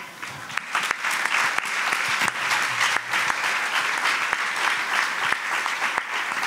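An audience applauding. The clapping comes in about half a second in and keeps up steadily.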